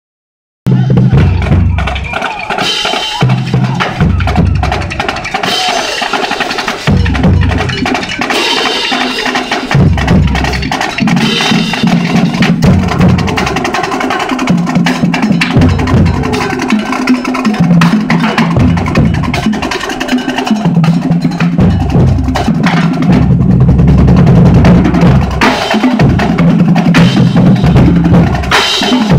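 A group of large dhol drums beaten together in a loud rhythm, the deep strokes coming in repeated phrases; it starts about half a second in.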